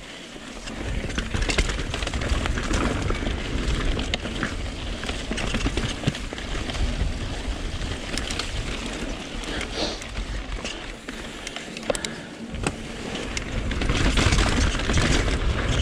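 Mountain bike riding over a dirt singletrack: tyres on dirt and leaf litter with the bike's rattles and clicks, and wind rumbling on the microphone. It gets louder near the end.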